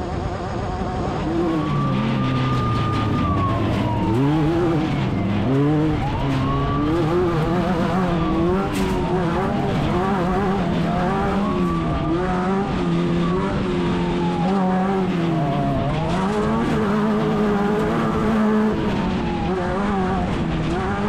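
Class 10 off-road race car engine running hard, its pitch repeatedly climbing and dropping every few seconds as the throttle comes on and off.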